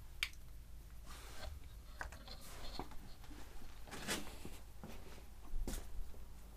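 Handling noise as the camera is picked up and carried: scattered faint knocks, clicks and rubbing, with the loudest knocks about four seconds in and again near the end.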